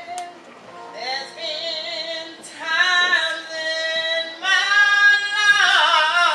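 A woman singing into a handheld microphone, holding long notes that slide between pitches, with no instruments playing. The singing grows louder about halfway through.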